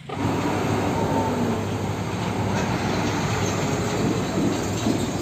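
Steady rumble and road noise of a heavy fuel tanker truck in traffic, starting abruptly.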